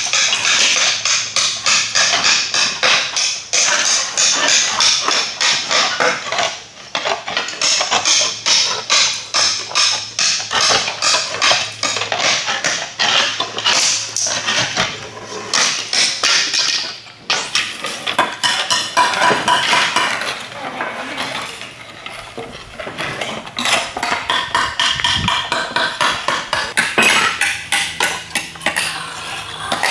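Roofing slates being trimmed and punched with hand slate cutters and slate hammers: a rapid, continual run of sharp clicks and cracks as the tools bite through the slate, with several people working at once.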